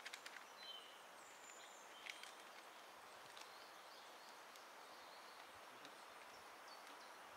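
Near silence: quiet forest ambience with a few faint, short, high bird chirps and some soft clicks in the first couple of seconds.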